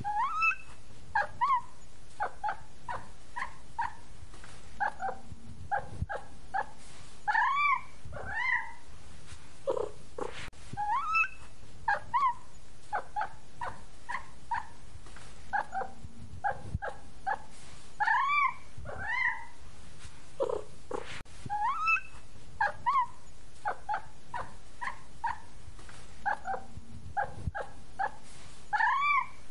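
Kitten mewing: many short, high mews with now and then a longer rising-and-falling meow. The same run of calls repeats about every eleven seconds, as a looped recording.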